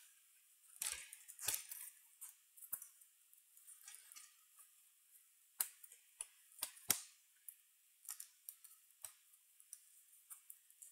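Sparse light clicks and knocks from hands handling laptop parts while a display panel is being fitted to the bare motherboard. The clicks come at irregular intervals, a second or more apart, with a few sharper ones near the middle.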